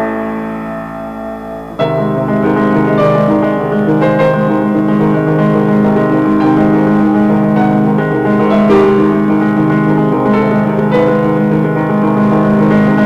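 Background keyboard music: a held chord that gives way about two seconds in to a busier run of notes over steady low notes.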